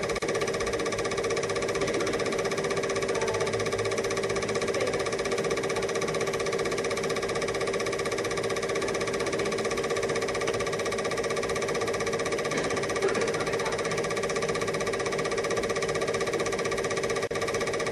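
8mm film projector running with a steady mechanical whir and rapid flutter, unchanged across the shots, with a brief dropout near the end.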